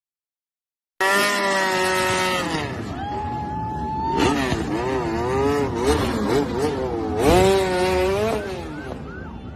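MotoGP race motorcycle doing a burnout: its engine starts about a second in and is revved hard over and over, the pitch rising and falling in repeated sweeps while the rear tyre spins in smoke.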